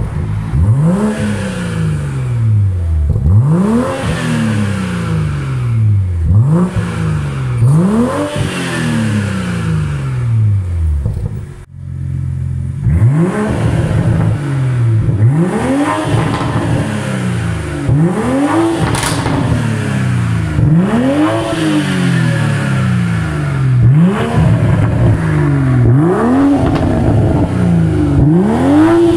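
BMW M340i's 3.0-litre turbocharged inline-six being free-revved over and over, about one blip every two seconds, each rev rising quickly and falling back. The first part is with the factory exhaust valve closed; after a short break the revs continue with the valve open through a Sirrush Exotic stainless steel performance muffler, with one sharp pop on a lift-off.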